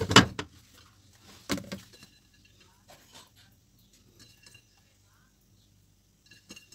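Kitchen handling noises: a loud bump just after the start and another about a second and a half in, then faint light ticks and rustles as grated cheese is sprinkled by hand over the dish.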